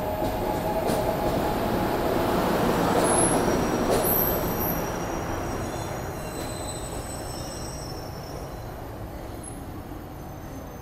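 SEPTA Market-Frankford Line el train moving along the platform. The rumble of the cars on the rails swells to its loudest about three to four seconds in and then fades as the train draws away, with thin wheel squeals over it.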